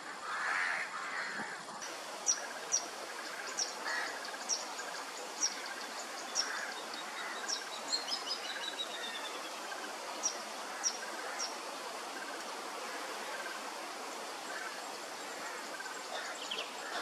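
Outdoor bird ambience: short, sharp, high chirps, one or two a second, with a brief falling run of notes about halfway through, over a steady background hiss. The first two seconds hold a louder, lower jumble of calls, and another short burst of calls comes near the end.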